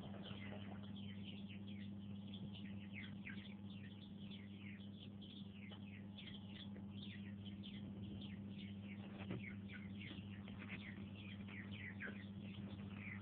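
Newly hatched chicks peeping continuously, many short falling peeps overlapping one another, over a steady low hum.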